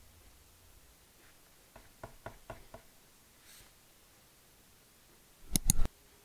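Cardboard packaging being handled and tapped: about five light taps, a soft brush, then three loud knocks in quick succession near the end.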